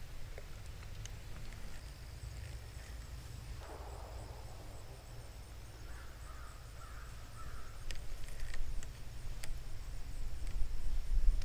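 Wind buffeting the microphone, a low rumble that gusts stronger after about eight seconds. A few bird calls come around six to seven seconds, and a few light clicks from the spinning reel being handled come near the end.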